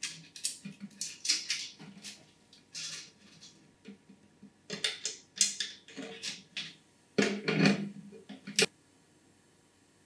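Handling noise from computer parts being fitted into a PC case: irregular plastic and metal clicks, knocks and scraping rustles, with a cluster of louder knocks near the end.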